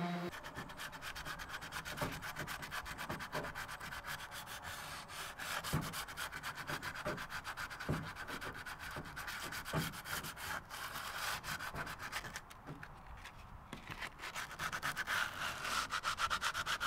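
Hand sanding of an aluminium boat hull with an abrasive pad: quick back-and-forth rubbing strokes in a fast, uneven rhythm, easing off briefly after about twelve seconds. This is the hull being scuffed in preparation for paint.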